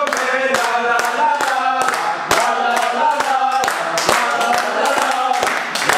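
A group of people singing together in chorus while clapping in time, about two claps a second.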